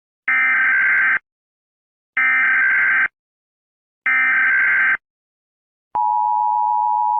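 Emergency Alert System SAME header: three harsh, screeching data bursts, each about a second long and a second apart. About six seconds in, the steady two-tone EAS attention signal starts.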